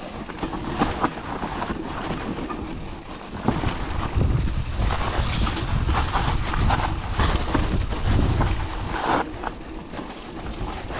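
Mountain bike tyres rolling fast over a wet gravel and dirt trail, with wind rumbling on the microphone. Irregular knocks and rattles come as the bike hits bumps and stones.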